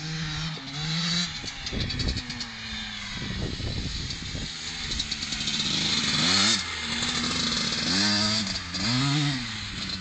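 Husqvarna 250 motocross bike ridden hard, its engine revving up and down in several quick rises and falls of pitch in the second half.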